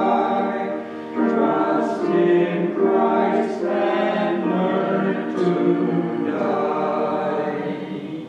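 A small mixed group of men's and women's voices singing a slow hymn in harmony, with long held notes; the last chord dies away near the end.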